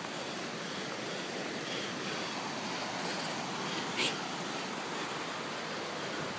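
Steady rushing of river water, an even hiss without a rhythm. A single brief sharp click about four seconds in.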